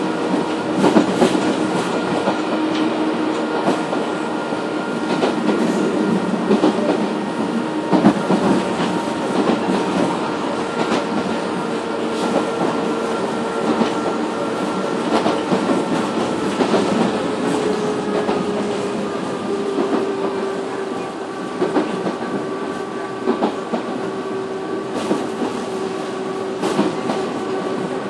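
Onboard running sound of Nishitetsu 313 series car 365, heard over its motor bogie. A steady whine from the cardan-drive traction motor and gearing sits over the wheel and rail noise, with scattered rail-joint clacks. The whine's pitch eases down slightly a little past halfway.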